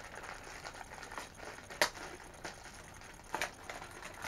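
A small cardboard Funko Mystery Mini blind box and the bag inside it being handled and opened: soft crinkling and rustling with a few sharp clicks and snaps, the loudest about two seconds in.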